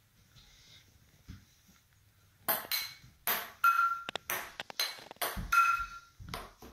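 A ping-pong ball rallied between frying pans and bouncing on a table: a quick run of about a dozen sharp clicks and pings starting about two and a half seconds in, a couple of them with a short metallic ring from a pan.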